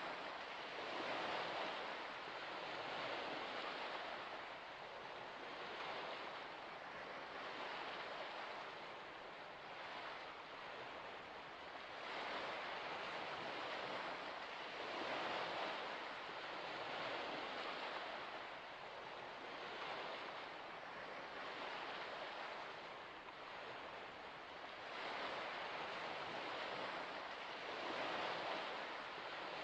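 Gentle waves washing in, a soft rushing that swells and eases every two to three seconds.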